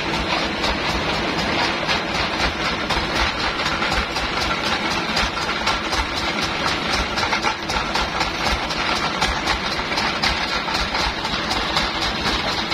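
Sawmill bandsaw machinery running steadily with no log in the cut, a constant mechanical running noise with a fine, fast rattle through it.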